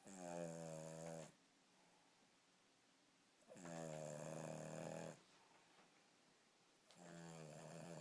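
A dog snoring while awake: three long snores, one about every three and a half seconds, with quiet breaths between.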